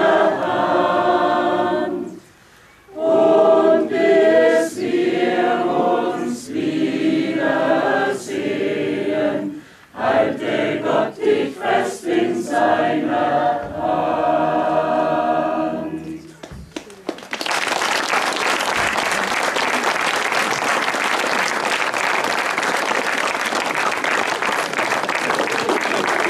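Mixed choir of men and women singing, with two brief breaks between phrases. About two-thirds of the way through the song ends and the crowd applauds.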